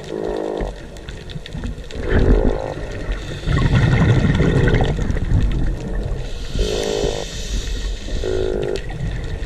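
Strange, unidentified underwater noise heard on a dive: four short pitched calls, each about half a second long, coming a couple of seconds apart. They sound over a loud low rumble of water and bubble noise.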